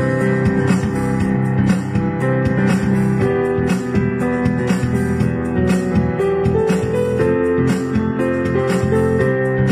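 Instrumental background music with a steady pulse of notes.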